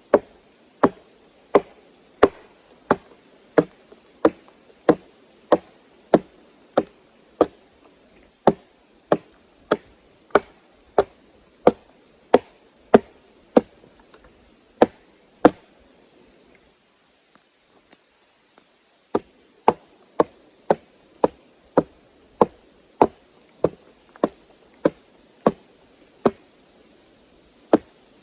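Axe chopping into a log in steady, even strokes, about three every two seconds, clearing the surface of a log to check whether it is rotten inside. The strokes stop for a couple of seconds past the middle, then carry on.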